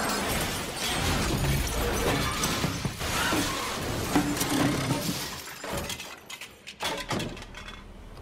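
Car crash: vehicles smashing into a barrier and each other, with glass shattering, loud and dense for about five seconds, then a few separate impacts as it dies down.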